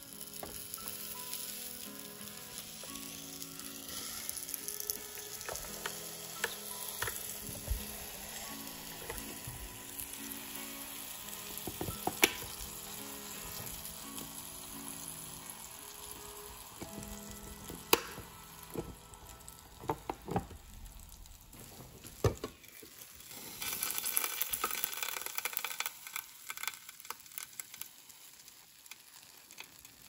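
Croissant dough sizzling in a hot electric waffle maker as croffles cook, with a few sharp clicks and knocks from the lid and handle. The sizzle swells for a couple of seconds about three-quarters of the way in.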